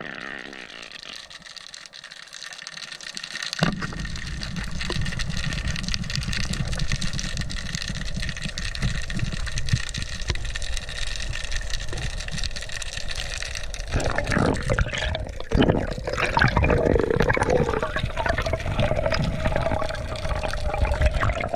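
Underwater sound on a diver's action camera: a muffled rush of water over the camera housing that starts abruptly about four seconds in and grows more turbulent later, over a steady high engine whine carried through the water.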